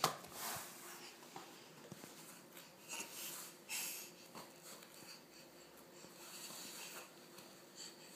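Faint breathing of a baby belly-crawling on a foam play mat, with small scattered rustles and taps as she moves and reaches.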